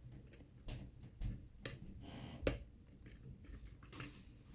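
Small, irregular metal clicks and scrapes of a hook pick working the pin stack inside a K-1 Locks "The Amateur" challenge lock, a six-pin lock with serrated and spool security pins. A brief scrape comes about two seconds in, followed by the loudest click.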